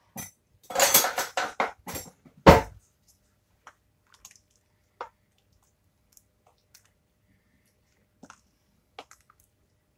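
Wooden spoon handling in a stainless steel stew pot: a quick run of knocks and clatters in the first two seconds, one loud knock about two and a half seconds in, then a few soft taps as the thick stew is stirred.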